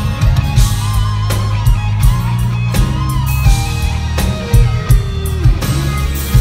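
Live rock band playing: an electric guitar solo line with bent notes over drums and bass, with no vocals.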